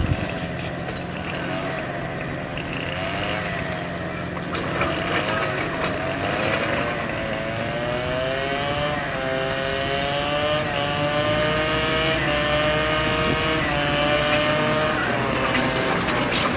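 Bulldozer's diesel engine running, its pitch wavering at first, then climbing and changing in steps from about six seconds in.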